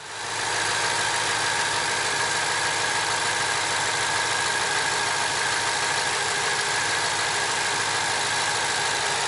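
Ford Shelby GT350's 5.2-litre flat-plane-crank V8 idling steadily after a fresh oil fill, run to circulate the new oil before the dipstick check. It fades in over the first half second, then holds an even level.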